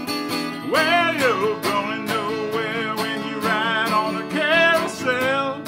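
Acoustic guitar strummed in a steady rhythm, with a wordless sung melody over it from about a second in. The melody's long notes waver.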